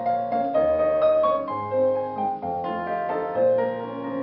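Instrumental piano accompaniment playing a melody over a bass line, with no singing.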